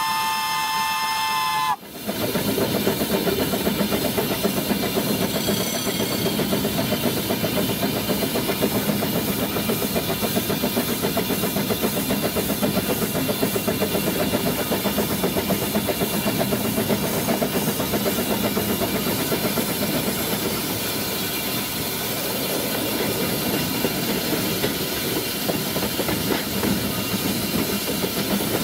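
The steam whistle of Baldwin 4-6-0T narrow-gauge locomotive WD778 sounds several tones together, heard from the footplate, and cuts off about two seconds in. After that the locomotive runs on with a steady hiss of steam and the rattle of the wheels and running gear.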